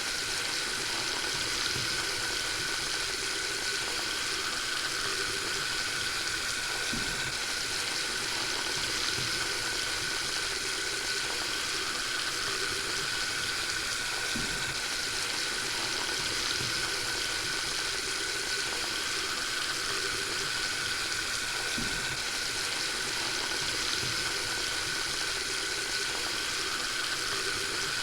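Water running steadily from a tap into a sink, an even, unbroken rush with a few soft drips and ticks in it.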